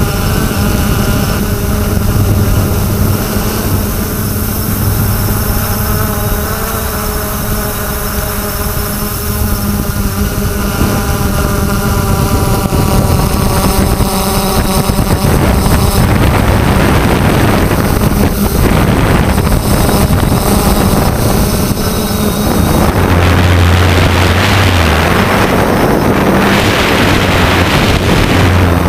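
3DR Solo quadcopter's motors and propellers buzzing steadily, wavering slightly in pitch as it manoeuvres. From about halfway, wind rushing over the microphone grows under the buzz and is loudest near the end.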